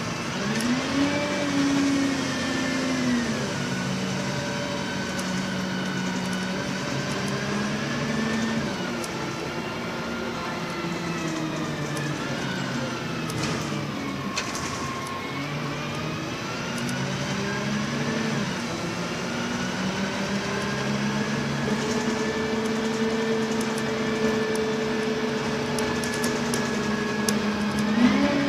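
MAN 18.220 bus's diesel engine heard from inside the saloon. It climbs in pitch as the bus pulls away, drops back with each gear change, eases off and slows in the middle, then picks up again, with a higher whine that follows the engine's pitch over steady road noise.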